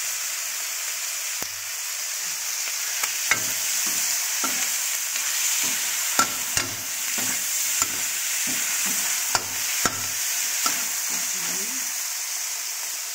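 Chicken pieces and sliced onion sizzling in a stainless steel wok while a metal spatula stirs them, with sharp clinks of the spatula against the pan every second or so.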